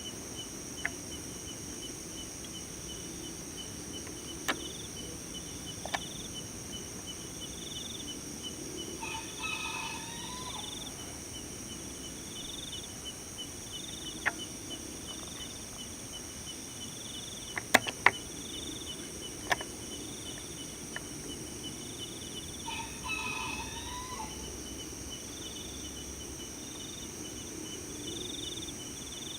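Insect chorus with a steady high-pitched buzz and a rapid cricket trill, plus a regular chirp about once a second. A short call sounds around ten seconds in and again around twenty-three seconds in. A few sharp clicks are scattered through, the loudest pair about eighteen seconds in.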